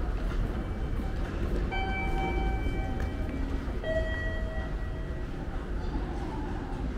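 City street ambience: a steady low rumble of traffic and background noise. Two held tones sound over it, a higher one about two seconds in and a lower one about four seconds in, each lasting a second or so.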